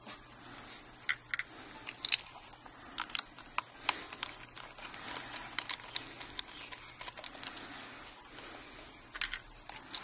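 Scattered light clicks and taps of a screwdriver and small metal parts as the drive's holding pins are moved from the old hard drive onto the new solid state drive. The sharper clicks bunch up between about one and four seconds in and again near the end.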